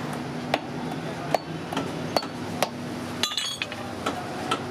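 Hand hammer striking an old car tire in about six sharp knocks at irregular intervals, with a brief clinking rattle about three seconds in, over a steady low hum.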